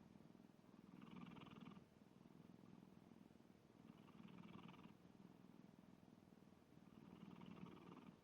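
A cat snoring, faint and steady, with three louder breaths about three seconds apart.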